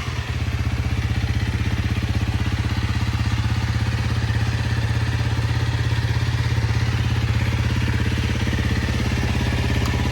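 Honda CRF300L's single-cylinder four-stroke engine idling steadily, with an even, fast pulse from the exhaust.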